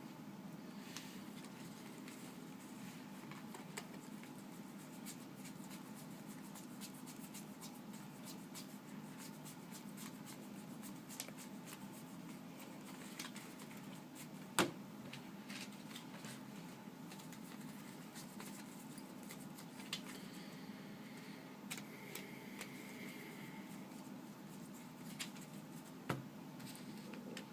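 Trading cards being handled: faint scattered ticks and rustles, with one sharper click about fifteen seconds in and another near the end, over a low steady hum.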